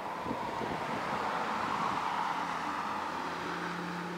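A car passing on the road alongside, its tyre and road noise swelling to a peak about two seconds in and then fading. A low steady hum underneath grows clearer near the end.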